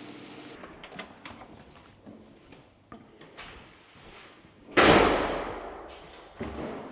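A few light clicks and knocks, then a door slams shut about two-thirds through with a ringing tail that fades over a second or so, followed by a smaller thump near the end.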